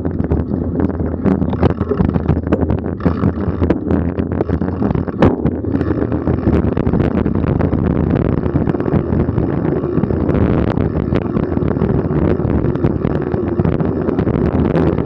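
Mountain bike rolling fast over a dirt and leaf-covered forest trail, tyre rumble mixed with wind on the microphone. The bike rattles and knocks over bumps for the first few seconds, then settles into a steadier rolling rush.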